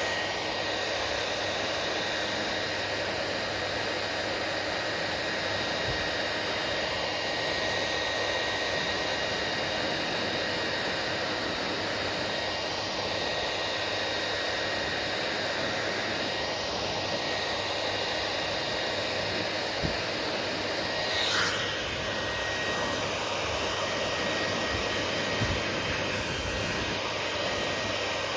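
Electric hair dryer running steadily: an even rush of blown air with a faint high whine from its fan motor. A brief swish about two-thirds of the way through.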